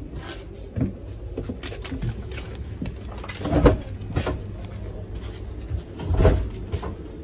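Steady low rumble inside a train carriage, with a few dull thumps and knocks from someone walking down the aisle while carrying the recording phone, the loudest about three and a half and six seconds in.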